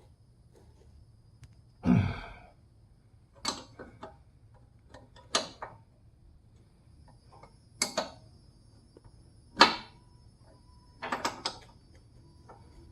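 Separate sharp knocks and clanks of hand tools and parts being handled while working on a car's front suspension, about seven in all and a second or two apart, with a quick cluster of them near the end.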